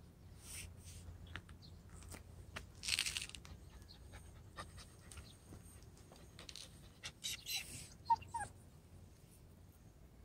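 A young white puppy panting in short breathy bursts, with two brief high whimpers about eight seconds in.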